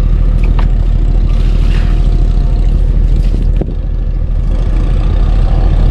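Fishing boat's engine running steadily with a low, even drone, with a single click and a slight drop in level about three and a half seconds in.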